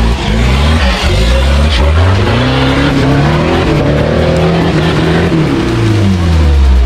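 A Suzuki 4x4's engine revving hard under load on a steep dirt climb. The revs rise over the first few seconds, hold high, then fall away near the end, over the noise of tyres churning loose dirt.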